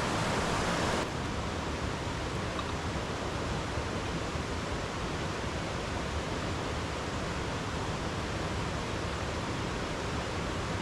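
Steady rushing of a mountain creek's cascading water. About a second in, it abruptly becomes slightly quieter and less hissy, then carries on unchanged.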